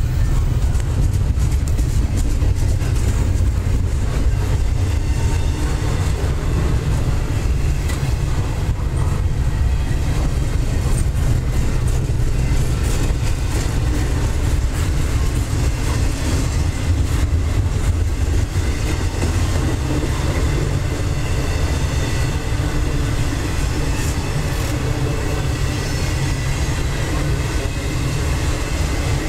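Double-stack intermodal freight train rolling past at close range: steel wheels of the loaded well cars running on the rails in a steady, mostly low rumble with some clatter.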